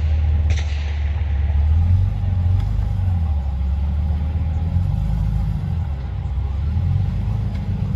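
Modified off-road Jeep 4x4's engine running at low revs under load as it crawls over a steep dirt mound, a steady low rumble. There is one short sharp click or knock about half a second in.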